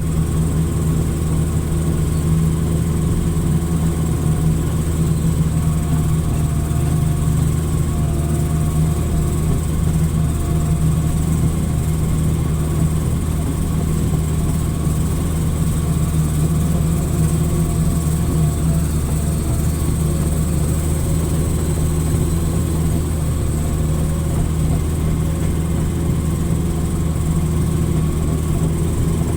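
Hitachi excavator's diesel engine running steadily at an even speed, a low, unbroken drone.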